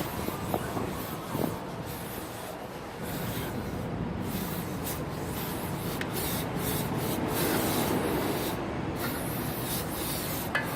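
Steady rubbing and scraping noise with scattered light clicks.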